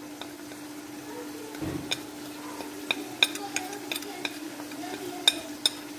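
Metal spoon clicking and scraping against a steel spice tray and an aluminium cooking pot, with scattered sharp clicks. Chicken and peas sizzle in oil underneath, over a steady low hum.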